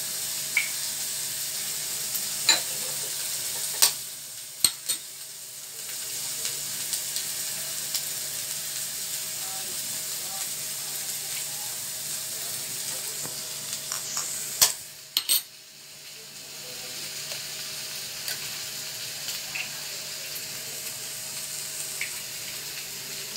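Small boneless chicken pieces sizzling steadily in oil in a pan, with sharp clicks of eggs being cracked against a bowl's rim: several in the first few seconds and a quick cluster a little past the middle.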